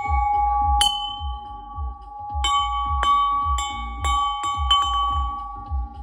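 Hanging cylindrical bells struck again and again, faster toward the middle, each stroke ringing on in two steady pitches that overlap. Underneath runs electronic music with a steady bass beat.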